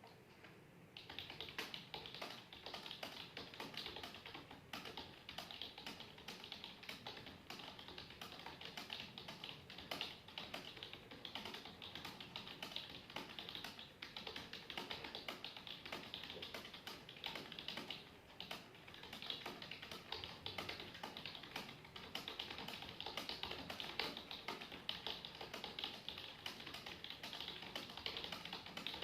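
Rapid, continuous typing on a computer keyboard, a dense stream of key clicks that starts about a second in, at typing-test speed of around 108 words a minute.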